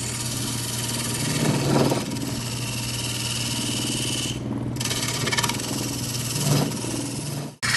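Wood lathe running with a turning tool cutting into a spinning wooden bowl blank: a steady hiss of the cut over the motor's hum. The cut lifts off briefly about halfway through, and the sound cuts out for an instant near the end.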